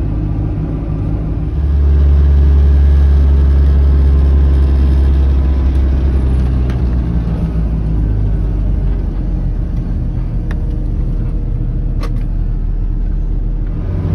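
Mercedes-Benz Vario 818 truck's diesel engine running on the move, heard from inside the cab. A deep drone swells about a second and a half in and eases off again a few seconds later, with a couple of faint clicks near the end.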